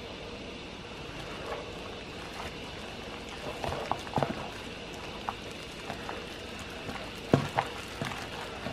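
A plastic-gloved hand mixing marinated chicken pieces with flour and cornstarch in a plastic bowl, making irregular wet squelches and clicks. The loudest squelch comes near the end, over a steady low hiss.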